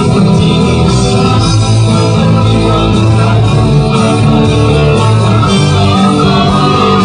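A live band playing a song with guitar, loud and steady.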